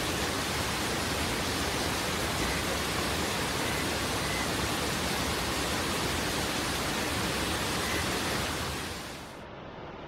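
Thirparappu Falls in heavy flow: a steady roar of falling water. A little over nine seconds in it cuts to a quieter, duller rush of water.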